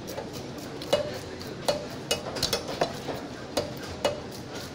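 Sea bass being cut into chunks on a boti, a large curved blade fixed upright: about seven sharp, irregular clicks and knocks, each with a brief ring, as the pieces are pressed through the blade.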